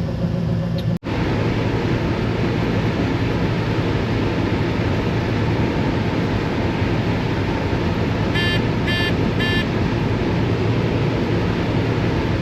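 A combine harvester running steadily during corn harvest, with a constant engine hum and machine noise. Three short electronic beeps, about half a second apart, sound a little over eight seconds in.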